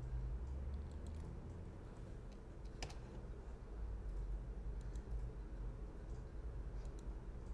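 A few scattered clicks of a computer mouse and keyboard, one sharper than the rest about three seconds in, over a steady low hum.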